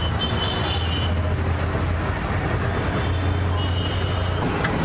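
Steady street noise of passing traffic with a constant low hum, with no single event standing out.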